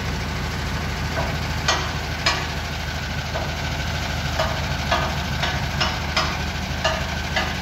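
Diesel engine of an Indo Power pick-and-carry crane running steadily, with about nine short, sharp clicks or knocks at irregular intervals over it.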